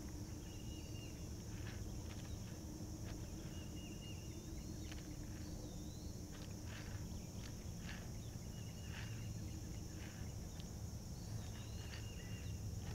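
Lakeside outdoor ambience: birds calling in short whistled notes every few seconds over a steady high-pitched insect drone and a low hum, with scattered faint clicks.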